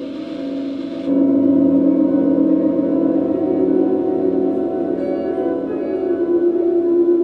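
Electric guitar playing improvised drone music: loud, sustained ringing notes held and layered, which swell louder about a second in as a high hiss drops away.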